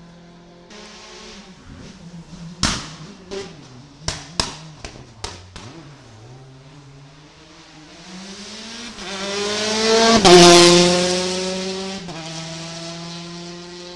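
Rally cars at full race pace on a tarmac stage. An engine fades away at first, then a string of sharp exhaust bangs comes between about two and a half and five and a half seconds in. A second car's engine then rises in pitch and loudness to its loudest about ten seconds in, and holds a high, steady note after that.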